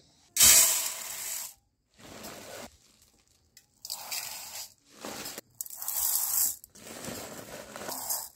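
Uncooked rice being poured into a steel bowl, with the woven plastic rice sack rustling, in about five short bursts of hissing, crinkling noise.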